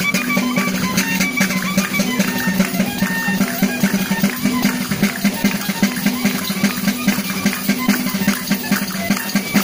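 Cantabrian folk music from a marching group: panderetas (large jingle-rimmed frame drums) struck in a quick, steady beat over a sustained low drone and a melody.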